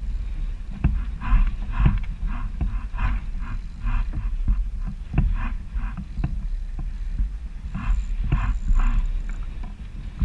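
Wind buffeting the microphone with a heavy low rumble, while small waves slap and splash irregularly against a kayak hull, with an occasional knock.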